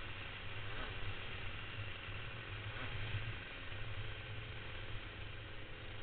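Rotax Max 125cc single-cylinder two-stroke kart engine running at race speed, its low drone under a steady rush of wind over the onboard camera, with faint rises in engine pitch about a second in and near three seconds.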